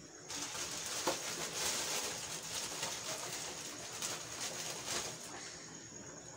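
Clear plastic bag crinkling and rustling as it is handled, its contents of dried okazi (afang) leaves shifting inside. It starts abruptly just after the beginning and stops about a second before the end.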